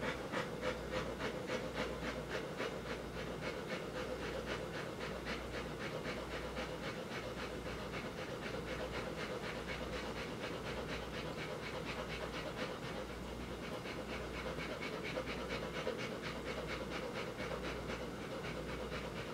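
Female Rottweiler panting in a quick, even rhythm.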